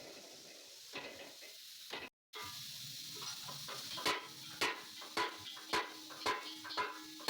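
Metal being struck in a steady rhythm, about two blows a second, starting about halfway through and ringing faintly between blows, over a steady hiss.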